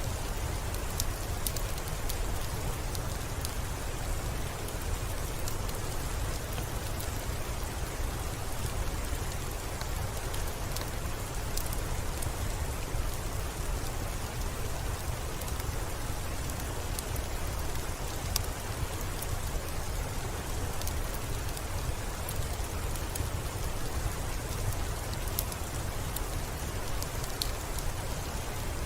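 Steady rain falling, an even hiss over a low rumble, with scattered sharp ticks throughout.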